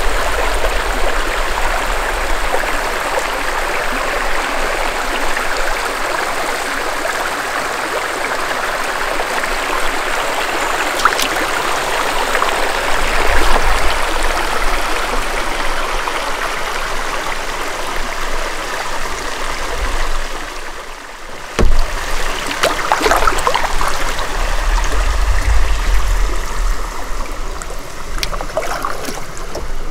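Water trickling and gurgling along a canoe being paddled slowly. About two-thirds of the way through there is one sudden sharp knock, the loudest sound, followed by a few uneven splashes of paddle strokes.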